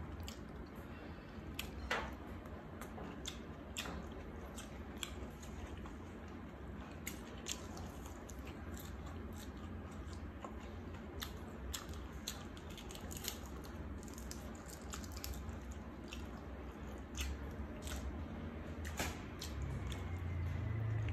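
Close-up eating sounds: chewing grilled egg with herbs, with many scattered wet mouth clicks and smacks over a steady low hum.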